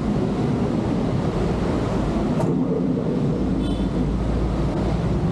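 Steady wind rumbling on the microphone over the low murmur of an outdoor crowd.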